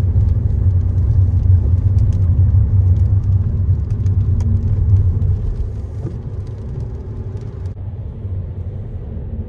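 A car being driven, heard as a steady low road and engine rumble inside the cabin. The rumble eases a little past the middle.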